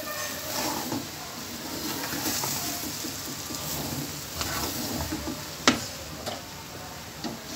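Wooden spoon stirring and turning boiled rice in a hot aluminium pot of oil, with scraping and a light sizzle. The spoon knocks sharply against the pot once, a little over halfway through.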